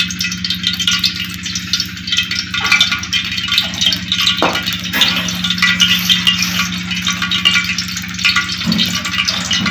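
Cooking oil heating in a steel wok, with a fine steady crackle over a steady low hum and a couple of single clicks.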